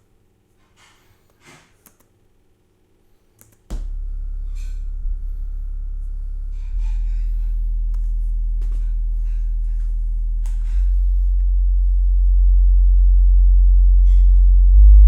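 REL T9i subwoofer playing a low bass test-tone sweep: a steady deep tone starts about four seconds in and steps up in loudness several times, rising slightly in pitch along the way. A few faint clicks come before it.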